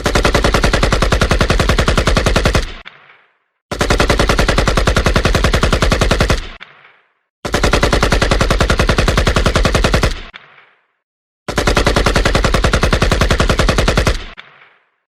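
Machine-gun fire sound effect: four bursts of rapid automatic shots, each lasting about two and a half seconds and ending in a short echoing tail, with brief silences between them.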